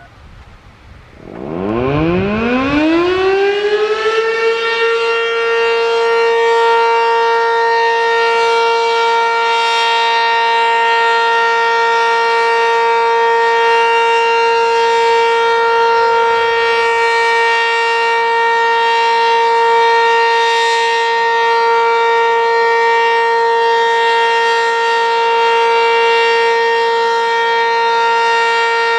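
ACA Banshee 115 electromechanical civil-defense siren winding up about a second in, its pitch rising quickly for a few seconds, then holding one loud, steady tone: the Alert signal of a siren test.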